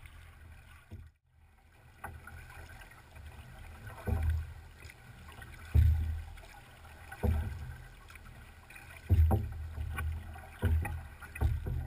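Paddles of a big voyageur canoe stroking through the water, each stroke a splash with a low thump, about one every second and a half.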